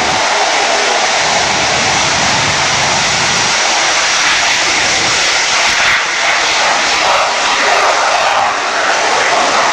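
EA-6B Prowler's twin turbojet engines at full takeoff power during the takeoff roll: a loud, steady jet rush.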